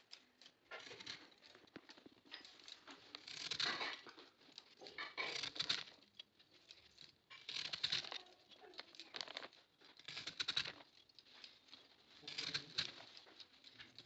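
A heavy flat knife slicing rounds off the white core of a banana stem, in rough scraping cuts every second or two, with the stringy fibres tearing as each slice comes away.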